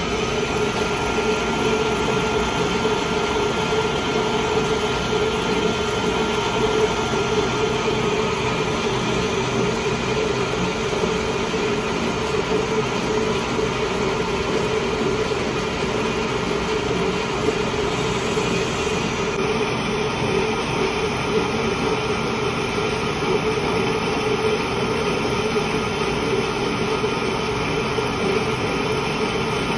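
Metal lathe running steadily while turning a long steel bar, a continuous mechanical drone with no pauses.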